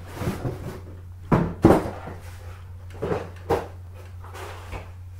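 Cardboard shipping box handled by hand: flaps folded back and an inner box pulled out, giving a few rustles and thumps of cardboard, the loudest about a second and a half in.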